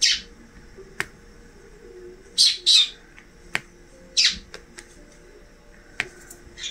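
Four short, harsh, high-pitched bursts, two of them close together, with a few light sharp clicks in between, typical of a drill pen tapping resin drills onto a diamond-painting canvas.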